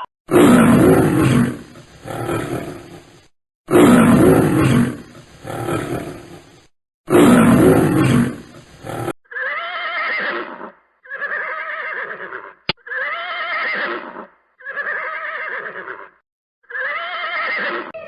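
Animal calls: three loud, long roaring calls about three and a half seconds apart. They are followed, about nine seconds in, by five shorter, quieter wavering calls.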